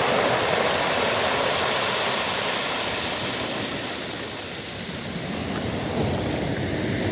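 Sea waves washing over a pebble beach: a steady rushing hiss that eases off in the middle and swells again near the end.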